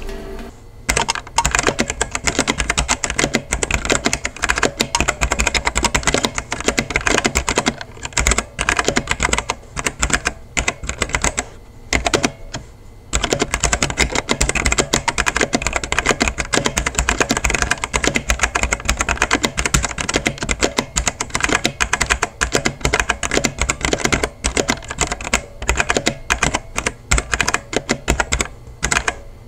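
Fast typing on a Machinike K500 mechanical keyboard: a dense, continuous run of keystroke clicks with a few short pauses. It sounds a little hollow and a little pingy, the plastic case having no foam inside.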